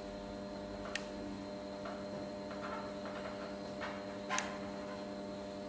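Steady electrical mains hum, with faint scratches and two sharp clicks from a marker writing on a whiteboard, one about a second in and one about four seconds in.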